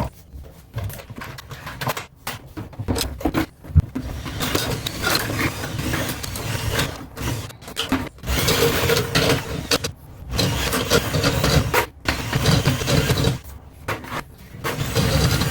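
Motorized drain snake running in spells, stopping and restarting several times, as its cable is fed through a toilet into the main drain line.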